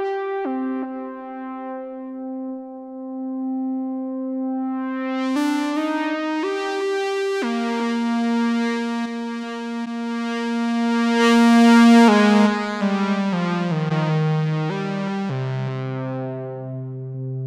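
Novation Summit synthesizer playing slow sustained chords that change every few seconds and grow brighter in the middle, then a stepping, descending bass line that settles on a low held note near the end.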